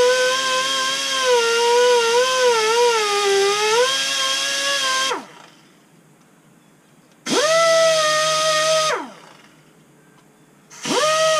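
Air die grinder with a sandpaper roll whining at high speed, its pitch dipping and wavering as it is pressed against the metal of a Gen 3 Hemi block's oil galleys to chamfer them. It spins down about five seconds in, runs again for about two seconds, stops, and starts once more near the end.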